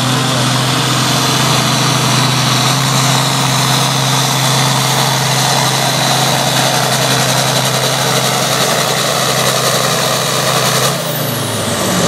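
Red International Harvester farm tractor's engine running hard at a steady pitch under load as it pulls the weight-transfer sled. About eleven seconds in, the revs drop as the throttle comes off.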